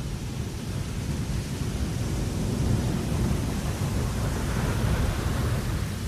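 Wind blowing across a ship's deck: a steady, deep rumble with a hissing top. It swells louder in the middle and eases near the end.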